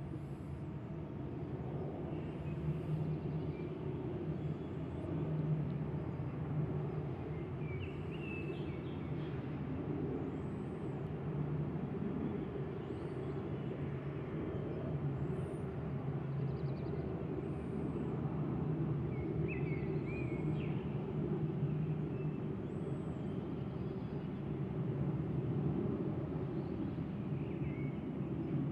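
Steady low hum of distant city traffic, with scattered bird chirps and a faint high chirp repeating about once a second.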